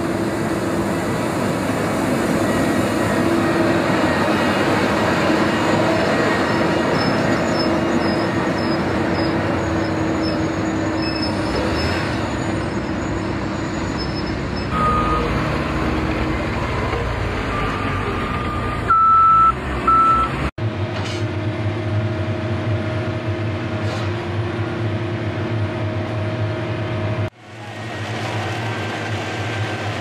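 JCB backhoe loader's diesel engine running steadily as it works, with a few short high reversing beeps about three-quarters of the way through. The sound then cuts abruptly to a different heavy machine's steady engine drone, and cuts again near the end.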